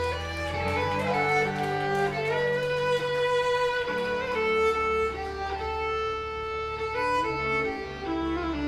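Live country band playing an instrumental passage, a fiddle carrying the melody with sliding, sustained notes over guitars, bass and drums.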